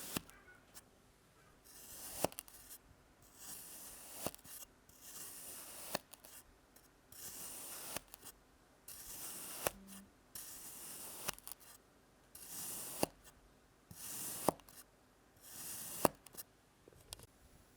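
Kinetic sand being sliced again and again, about nine times. Each slice is a soft, gritty hiss lasting about a second that ends in a sharp click as the blade reaches the surface beneath.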